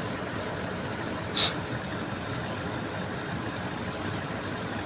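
Lexus LX 570's 5.7-litre V8 idling steadily, just after new ignition coils were fitted on cylinders 4 and 6 to cure a misfire. A single short, sharp, high-pitched click or beep comes about a second and a half in.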